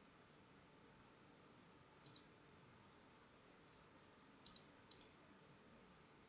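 Faint computer mouse clicks: a double-click about two seconds in, then two more double-clicks in quick succession around four and a half to five seconds, over quiet room tone.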